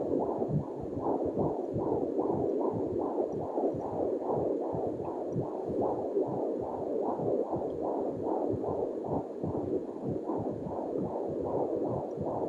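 A beating heart, heard as a fast, even run of whooshing pulses, about two and a half beats a second.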